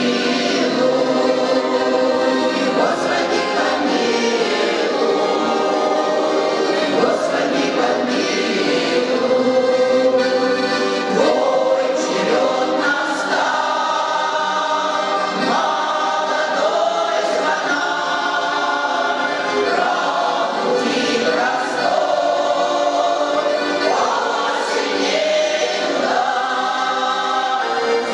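A choir singing, holding long chords that change every second or two.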